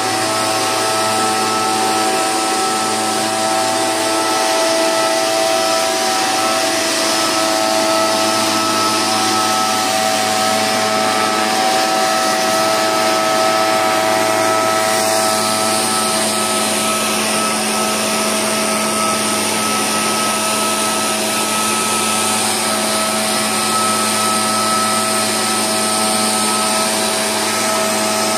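Oleo-Mac MB 90 backpack power mist blower running steadily: its two-stroke engine at a constant high speed, with the rush of air through the blower tube as it sprays mist.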